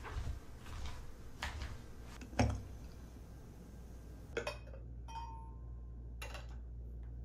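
Glass teaware being handled on a table: about six separate light clinks and knocks of a glass tea-infuser pot, its basket and a glass mug. The loudest knock comes about a third of the way in, and one clink a little past two-thirds in rings briefly.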